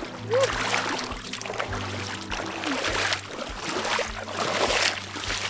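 River water splashing and sloshing, under background music with a steady beat.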